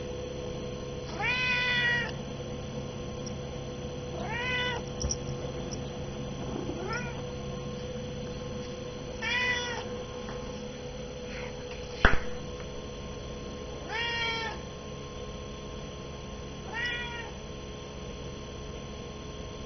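A hungry domestic cat meowing, about six short meows spaced a few seconds apart, over a steady background hum. About twelve seconds in, a single sharp click or knock is the loudest sound.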